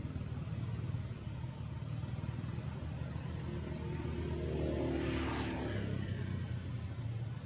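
A steady low rumble, with a motor passing by: it swells from about four seconds in, peaks about a second later with a droning pitched note, then fades away.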